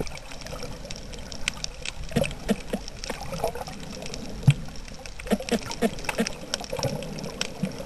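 Underwater sound picked up by a submerged camera: water gurgling and bubbling, with many scattered sharp clicks and short low blips.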